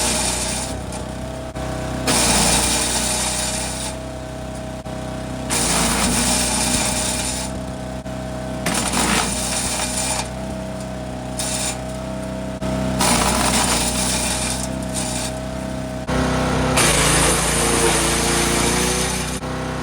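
Forest Master FM8DD wood chipper's engine running steadily while branches are fed in, with a loud burst of chipping every few seconds as each branch is chewed up. Near the end the engine note drops under the load of a bigger piece.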